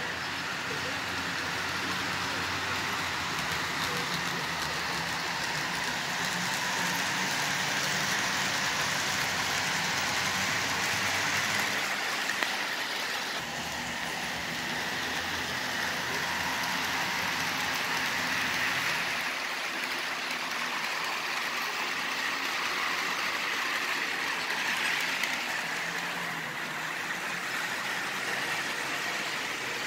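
HO scale Stewart Hobbies model locomotives running on the layout: a steady whir and rush of motors and wheels rolling on the rails.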